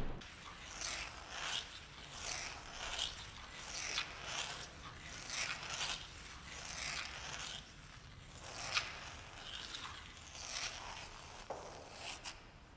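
Pencil scratching on a white wall, tracing the loops of an infinity sign over and over: a rhythmic scraping that swells and fades with each stroke, about three strokes every two seconds.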